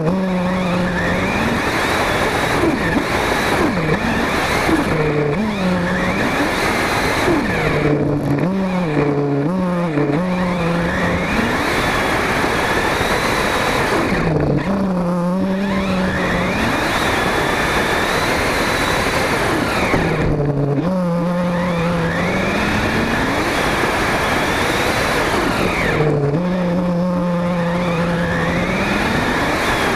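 Radio-controlled Inferno buggy running hard over grass and dirt, heard from its onboard camera. The motor's pitch rises and falls again and again with the throttle, over constant noise from the tyres and the ground.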